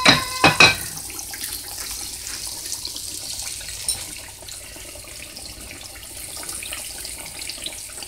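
Breaded catfish steaks frying in hot oil in a skillet: a steady, crackling sizzle. There are a few sharp clinks right at the start.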